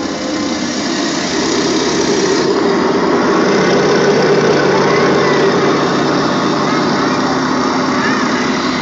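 A loud, steady rumbling wash of noise from a stage show's sound system, with a few faint short whistling glides in the second half.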